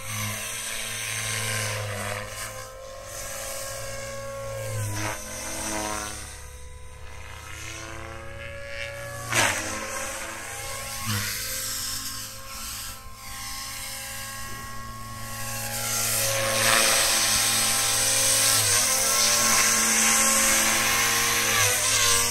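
Compass Warp 360 electric RC helicopter flying: a brushless Scorpion motor and gear whine over the rotor blades' steady whirr. The pitch dips and recovers several times as the blades are loaded. It grows louder over the last few seconds as the helicopter comes close.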